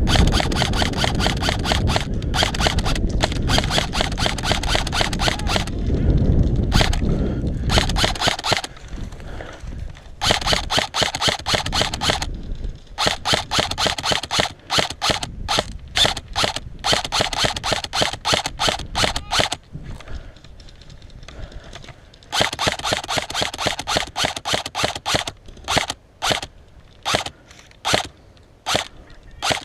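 Airsoft electric rifles firing long full-auto bursts of rapid, evenly spaced shots, several strings of a few seconds each, thinning to scattered single shots near the end. A low rumble lies under the first eight seconds or so.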